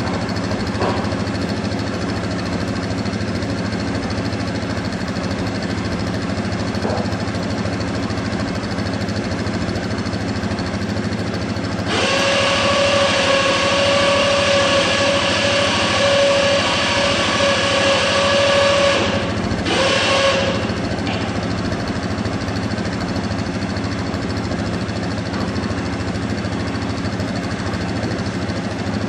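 2017 Yamaha Kodiak 700's single-cylinder engine idling steadily. About twelve seconds in, a louder steady whine with a hiss joins it for about seven seconds, stops, and comes back for about a second.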